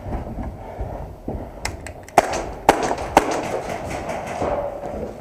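Airsoft guns firing in a close-quarters game: a handful of sharp cracks, the main ones about half a second apart in the middle, over a low background rumble.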